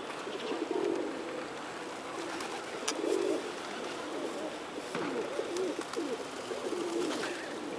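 A flock of feral pigeons cooing, many low coos overlapping without a break. A single sharp click about three seconds in.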